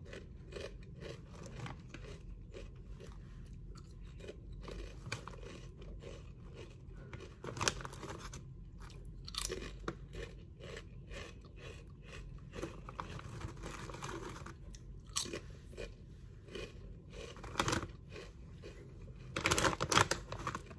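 Crisp potato chips being chewed, with a steady run of short crunches. Near the end, a louder crackle comes as the foil chip bag is handled and a hand reaches in.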